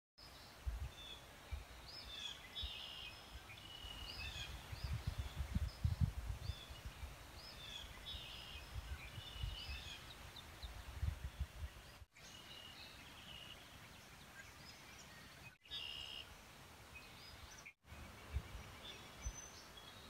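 Small birds chirping and calling in short, repeated notes and brief trills, with a low irregular rumbling underneath in the first half. The sound cuts out for an instant three times in the second half.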